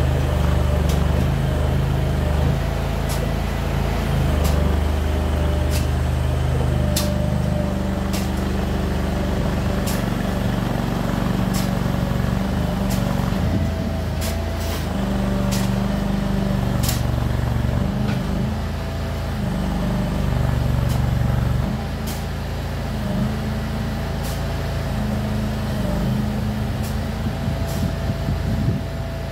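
Kanga mini loader's engine running steadily while the machine drives and works, its low pitch shifting up and down with load and throttle. Short sharp clicks are scattered throughout.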